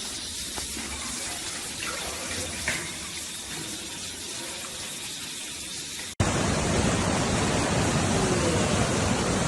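Steady rushing water. About six seconds in it cuts abruptly to a louder, deeper rush.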